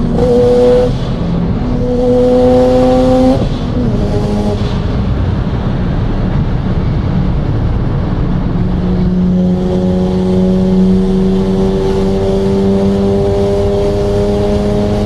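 Car engine accelerating hard: its pitch climbs, drops sharply at gear changes about a second in and again after about three seconds, eases off, then climbs slowly and steadily through the second half.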